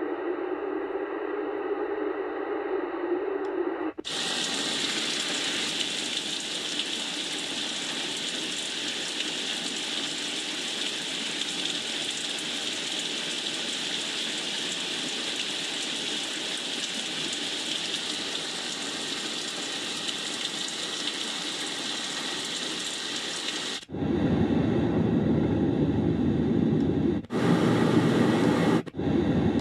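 White noise machine playing steady masking noise that changes character abruptly: a hiss sitting mostly in the upper range from about four seconds in, then about twenty-four seconds in a louder, deeper rushing noise like running water, which cuts out briefly a couple of times near the end.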